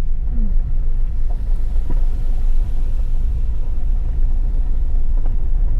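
Four-wheel-drive vehicle on the move, heard from inside the cab: a steady low rumble of engine and running gear.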